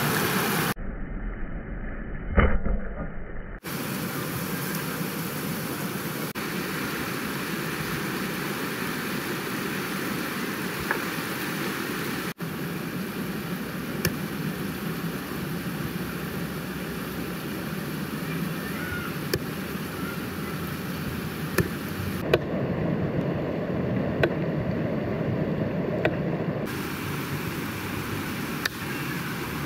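Shallow, rocky river rushing steadily, with a few short sharp clicks scattered through.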